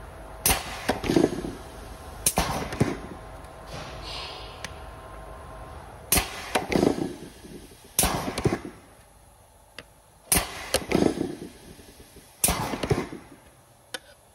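TOX pneumohydraulic clinching unit pressing clinch joints into steel sheet. About six press strokes, each a sharp crack followed at once by a short noisy burst, spaced roughly two seconds apart.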